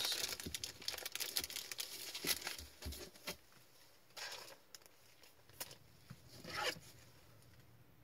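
Trading cards and their plastic packaging being handled: crinkling, rustling and light clicks, busiest over the first three seconds, with two shorter rustles around four and six and a half seconds in.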